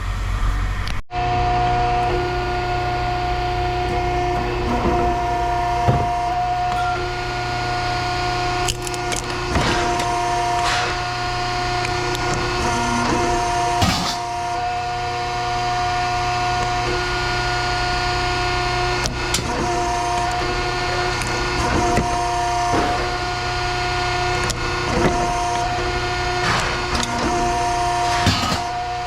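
An electric motor running steadily with a whine, starting about a second in, with scattered clicks and knocks.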